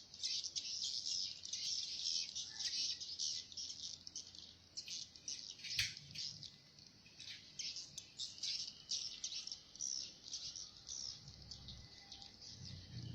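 Swiftlets twittering: dense, rapid, overlapping high chirps from a flock crowding into a swiftlet house, with one sharp click about six seconds in.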